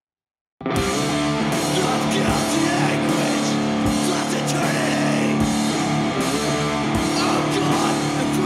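Punk rock band music kicking in abruptly just after the start: electric guitar chords held over drum hits that land about every second and a half.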